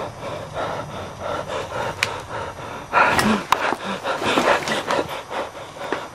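A person panting and gasping heavily in quick, noisy breaths, louder from about three seconds in.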